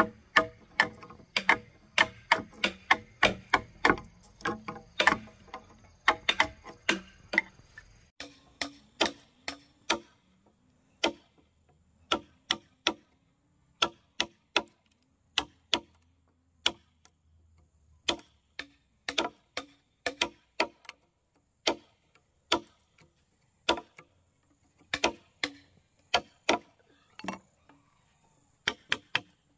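Repeated sharp blows of a hand tool striking wood, as in hammering or chopping timber for a house frame. The knocks fall at an uneven pace of a few a second, closer together in the first third.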